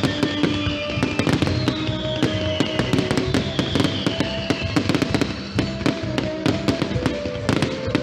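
Fireworks display: a dense run of bangs and crackles going off over music from the show's sound system, with held notes and a couple of falling whistles in the first half.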